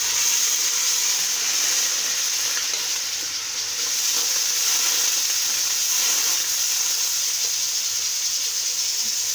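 Sliced onions sizzling steadily in hot oil in a steel wok, steaming just after a splash of water was added, while a slotted steel spoon stirs them.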